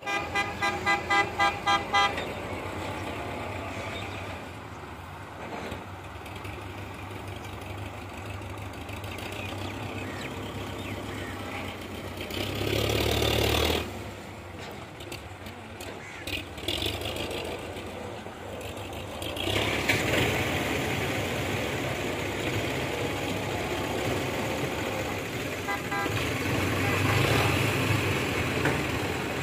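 Tractor engines running steadily as tractors haul loaded trolleys in a race, with a horn tooting rapidly, about four times a second, at the start and briefly again near the end. The engine sound gets louder for about a second around the middle and again through the last third.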